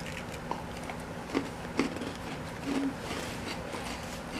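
Someone biting and chewing a cookie, a few small crisp crunches over a steady low room hum.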